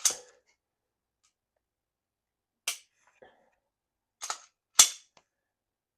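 Smith & Wesson M&P 2.0 metal pistol being dry-fired: a handful of short, sharp metallic clicks from the trigger breaking and resetting, spaced irregularly, with the loudest near the end.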